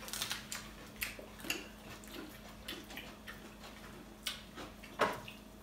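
Quiet wet mouth sounds of people eating orange slices: scattered small smacks and sucking sounds, with a louder one about five seconds in.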